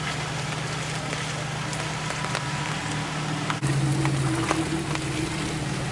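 Jeep Wrangler TJ engine running steadily, then the throttle comes up about three and a half seconds in and the engine note gets louder. Scattered sharp ticks and taps, like rain or mud striking the vehicle, run through it.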